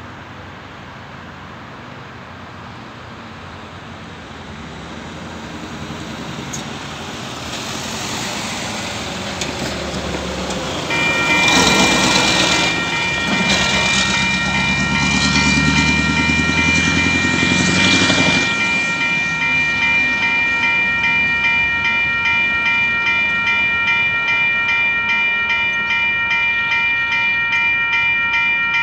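Level crossing warning bell starting abruptly about a third of the way in and ringing steadily on, signalling an approaching train. As it starts, a heavy truck passes close by, its diesel engine and tyres the loudest sound for several seconds.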